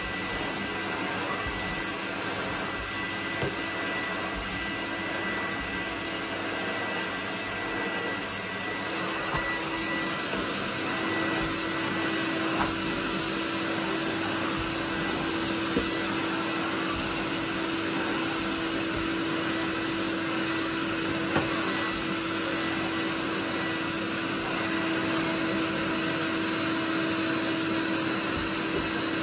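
Numatic David tub vacuum cleaner running steadily while its floor tool is pushed over carpet, a continuous whooshing hum with a faint high whine. A low hum grows stronger about ten seconds in, and there are a few light knocks.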